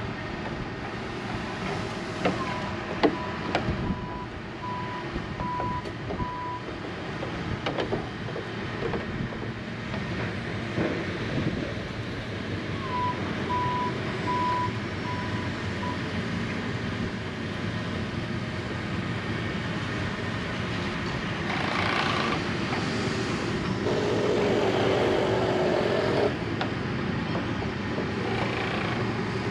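Backup alarm on construction machinery at work on the piers: two runs of evenly spaced reversing beeps, a few seconds in and again about halfway. Steady machinery and vehicle noise underneath, growing louder in the last few seconds.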